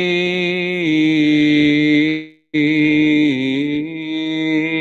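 A single male voice chanting in Orthodox liturgical style, in two long held phrases with a short breath between them about halfway through; the pitch steps down a little within each phrase.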